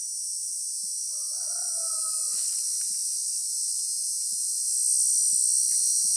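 A rooster crows once, about a second in, for just over a second. A steady high-pitched insect chorus runs underneath and grows louder near the end.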